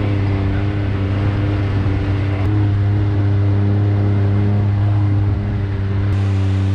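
Side-by-side UTV engine running steadily at an even pitch while driving on a gravel trail.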